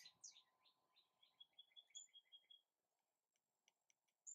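Faint songbird chirping in the background: a few quick falling chirps, then a quick run of short repeated notes, trailing off into faint ticks.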